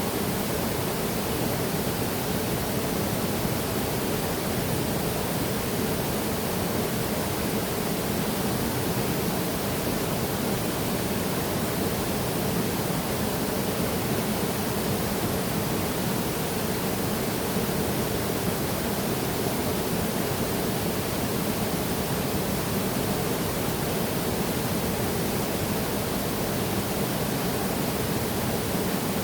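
Waterfall rushing steadily, a continuous, even roar of falling water with no separate splashes or changes.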